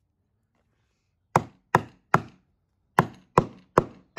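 Hammer striking a chisel to drive it through a rawhide drum head into the plywood beneath, cutting holes along a template. Two sets of three sharp blows, starting about a second in, with a short pause between the sets.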